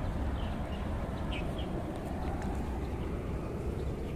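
Several short bird chirps over a steady low rumble.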